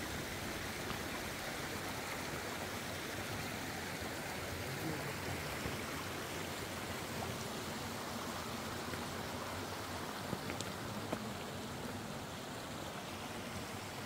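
Steady rushing of a mountain valley stream.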